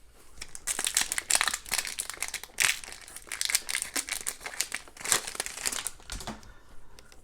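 Wrapper of a hockey card pack being torn open and crinkled by hand: a long run of irregular crinkling rustles that dies away near the end.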